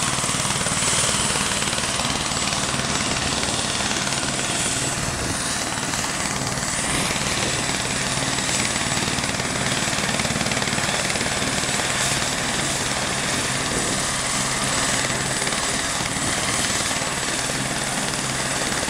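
Tour helicopter running on the ground: a steady rotor and turbine drone with a thin high whine.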